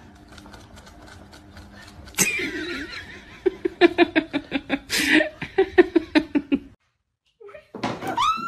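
A person laughing in a quick string of short bursts, about four a second, for around three seconds, after a sudden loud noisy burst about two seconds in. It cuts off abruptly near the end.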